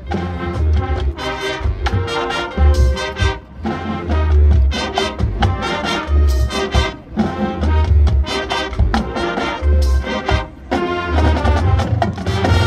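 High school marching band playing live: brass chords over heavy low drum hits and percussion.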